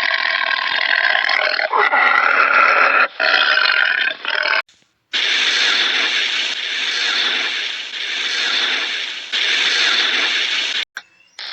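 Animal vocal sounds in two parts: first a pitched, wavering call lasting about four and a half seconds, then, after a brief break, a rough sound without clear pitch for about six seconds.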